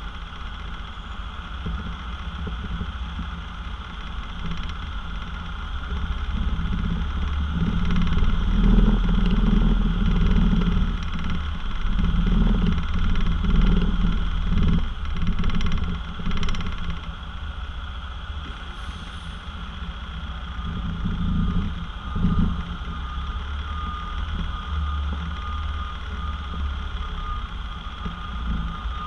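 B-double truck's diesel engine running as the rig pulls slowly forward, swelling under throttle for several seconds in the middle and then easing back. A faint, high, repeating beep sounds in the last third.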